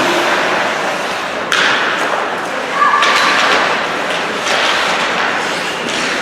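Ice hockey rink during play: spectators' chatter echoing in the hall, with sudden thuds and slams from the play on the ice about one and a half, three and four and a half seconds in.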